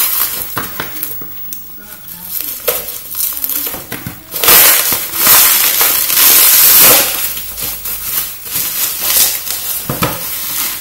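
Packaging being handled and opened: crackling and rustling with sharp snaps, loudest over a long stretch from about four to seven seconds in.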